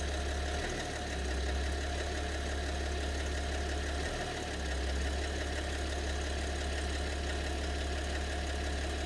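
BMW 730d's M57 straight-six diesel idling, with a mysterious clatter in the engine that the owner thinks may come from as many as two cylinders. The low engine note dips briefly twice.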